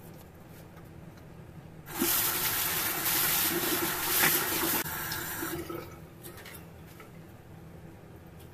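Water from a tap running into a bathroom sink for about three seconds, starting about two seconds in, then easing off and stopping.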